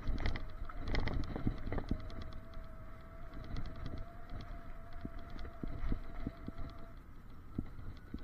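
E-bike's electric motor whining steadily while riding, the whine stopping about seven seconds in. Frequent knocks and rattles from the bike running over a rough road surface, with a low wind rumble on the microphone.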